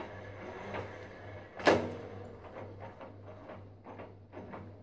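Milling machine running with a steady low hum while a tap is worked into a hole in a steel workpiece. A single sharp clack comes nearly two seconds in, followed by a run of light quick clicks.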